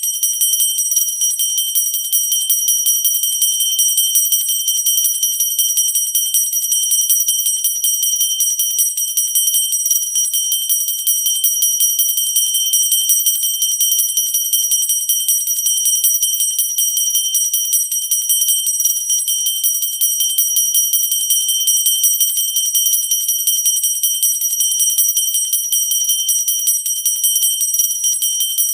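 Pooja bell ringing continuously, its clapper striking in quick unbroken succession, giving a steady high, bright ringing with no pauses.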